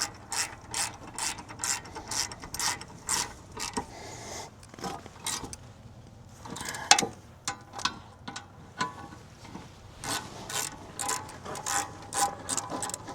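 Socket ratchet wrench clicking as bolts are run in, in quick runs of strokes at about two to three clicks a second, easing off in the middle and picking up again near the end.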